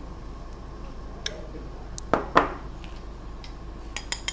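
A metal spoon clinking and scraping against a ceramic bowl as sugar is scooped out, with scattered light ticks and two sharper, ringing clinks about two seconds in.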